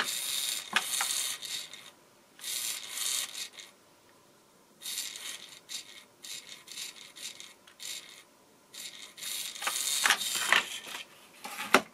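Small geared motor of a Tonka XT Ricochet RC car's steering servo whirring in bursts of a second or two, with short pauses, as the steering is worked back and forth from the remote. The servo turns freely again after being unjammed; sand had made it stick.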